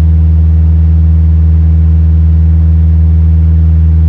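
Ford Ranger pickup's engine idling with its air-conditioning compressor engaged: a loud, steady low hum.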